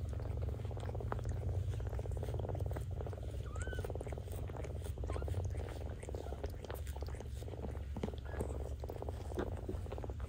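Cat purring steadily at close range, a continuous low pulsing rumble, with scattered small clicks and a brief high rising squeak about four seconds in.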